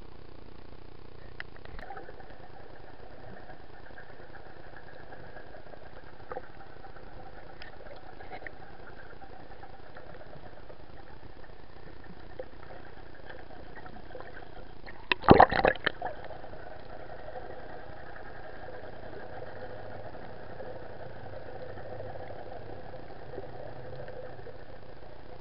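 Underwater sound picked up by a snorkeler's camera: a steady drone and hiss with a few faint clicks, broken about fifteen seconds in by a short, loud clatter of knocks.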